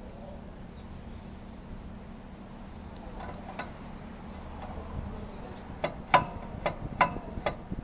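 On-car brake disc lathe with a low steady hum; about six seconds in, a run of sharp metallic clicks with a short ringing tone, roughly two a second, as its cutting tool is set against the brake disc.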